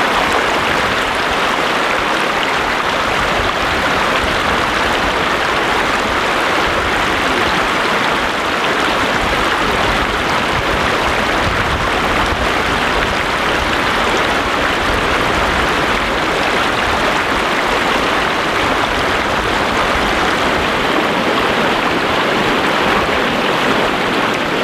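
Shallow water rushing steadily over rocks and pebbles, an even, unbroken splashing rush.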